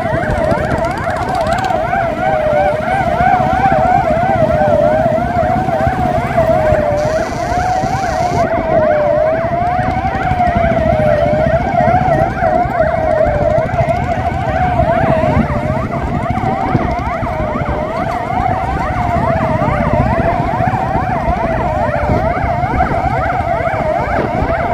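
Police sirens wailing without a break. One siren rises and falls slowly, about once every second and a half, with faster warbling sirens layered above it, over the running of a motorcycle engine and road noise.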